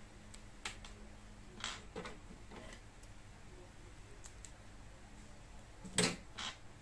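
Scissors snipping rubber concrete-nail stoppers off a moulded sheet: a run of short sharp snips and clicks, with the two loudest close together near the end.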